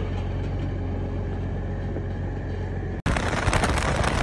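A vehicle engine running steadily at one low, even speed. About three seconds in, a sudden cut to louder driving noise from the Rolls-Royce pickup truck on the move, with wind buffeting the microphone.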